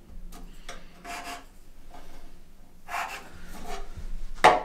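Pencil scratching on a surfboard's deck along a ruler edge, in a few short strokes as a line is drawn, with a louder sharp sound near the end.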